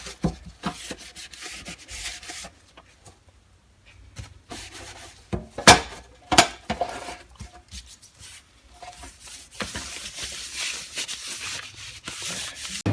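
Hand scrubbing on the surface of a steel toolbox in two spells, with a few sharp knocks in the quieter stretch between them, the loudest about six seconds in.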